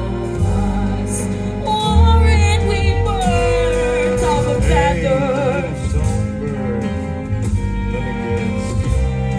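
Music between sung verses: sustained low bass accompaniment, with a wavering melody line with vibrato coming in about two seconds in.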